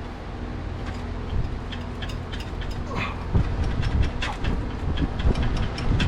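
Sharp metallic clicks and knocks of hand tools and parts being worked during disassembly, coming thicker toward the end, over a steady low hum.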